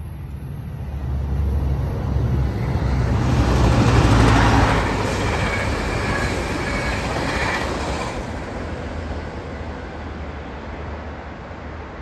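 A Metrolink passenger train, an EMD F125 diesel locomotive with two Bombardier bi-level coaches, passing by: a deep rumble builds to its loudest about four seconds in, with a rushing wheel-on-rail noise and a thin high tone for a few seconds, then fades away as the train recedes.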